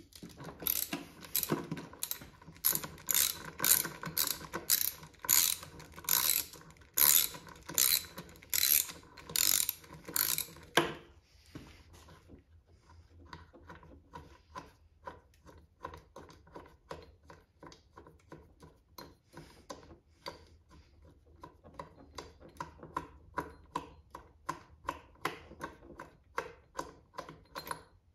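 Hand ratchet wrench clicking in repeated strokes, about two a second, for roughly the first eleven seconds. The clicking then goes on fainter and quicker, growing a little louder near the end.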